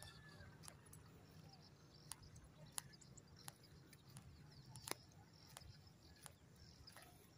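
Near silence: faint footsteps on a concrete road, a short tick about every 0.7 s, at an even walking pace.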